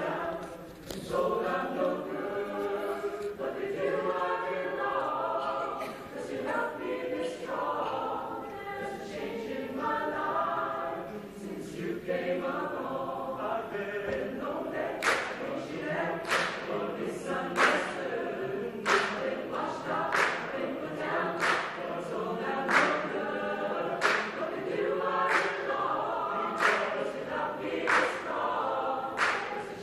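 Mixed choir singing a cappella in several parts. About halfway in, sharp hand claps join in time with the song, about one and a half a second.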